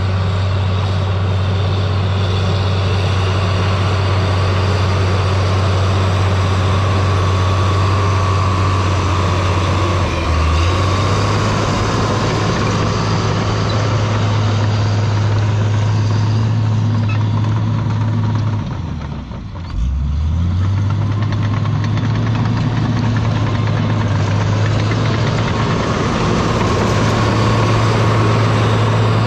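Diesel engine of a tracked earthmoving machine running steadily under load. Its pitch dips briefly about ten seconds in, then drops lower and quieter around nineteen seconds in before picking back up.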